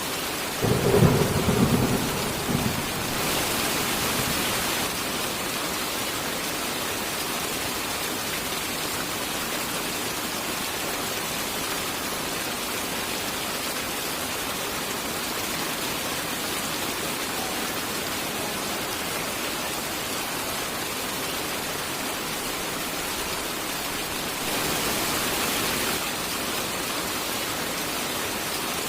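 Steady heavy rain with one thunder clap that rumbles low and loud for about two seconds, starting about a second in. The rain briefly grows heavier twice, just after the thunder and again near the end.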